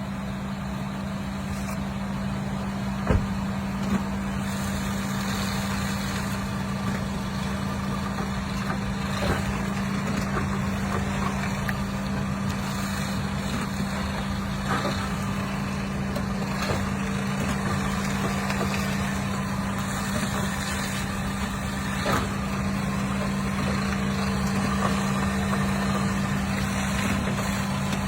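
2023 Toyota Highlander running with a steady low hum, broken by short, sharp clunks every few seconds, the loudest about three seconds in. The clunks are the sign of a bad rear engine mount, the one over the rack and pinion.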